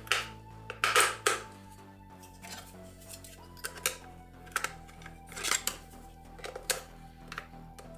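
Hard plastic clicks and clatters from a rechargeable COB work light's battery compartment as two cylindrical cells are pressed into their holder and the plastic cover is fitted and taken off again. A dozen or so short, sharp clicks, the loudest about a second in, over soft background music.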